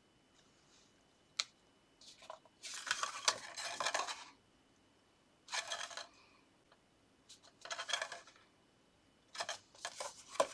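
Paper and card being handled and rustled on a craft table in several short bursts, with a single sharp tap about a second and a half in.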